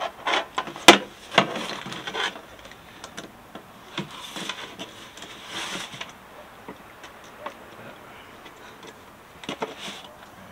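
Knocks, clicks and rubbing from handling a hollow plastic fuel tank while a diesel heater's fuel pickup on a wire is worked into its opening. The sharpest knocks come in the first two seconds, then scraping and a few scattered clicks.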